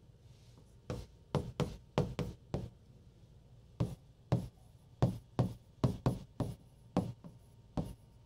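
Pen stylus tapping and knocking against the glass of a large touchscreen whiteboard while figures are written on it: a series of sharp taps in uneven clusters.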